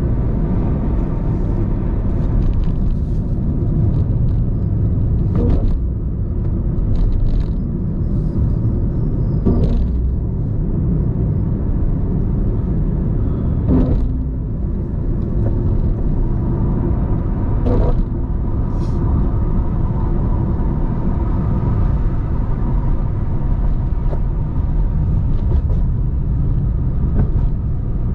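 Car driving along: a steady low rumble of engine and road noise, with a few short knocks spread through it.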